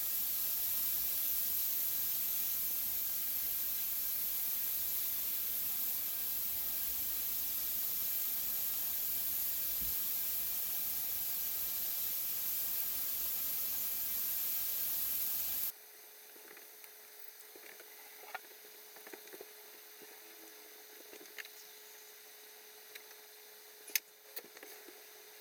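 Beef pieces searing in a smoking-hot nonstick pan: a loud, steady sizzle that cuts off abruptly about two-thirds of the way in, leaving a quiet background with scattered small pops and a faint hum.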